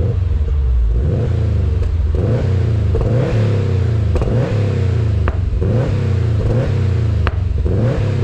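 2016 Subaru WRX STI's turbocharged 2.5-litre flat-four revved in repeated throttle blips, about one a second, through an Invidia Q300 full aftermarket exhaust, with a rally-like sound. Two sharp exhaust pops crack out in the second half.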